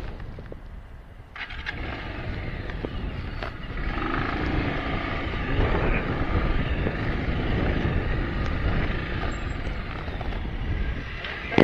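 Bajaj Avenger 220's single-cylinder motorcycle engine running as the bike rides over a loose, rocky gravel track, with a steady rumbling noise on the microphone. It gets louder about a second and a half in.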